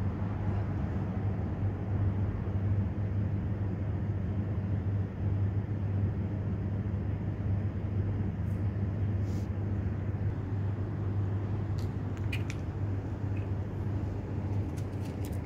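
Steady low machine hum with a constant drone and a second, higher hum line above it, like an engine or motor running nearby; a few faint clicks near the end.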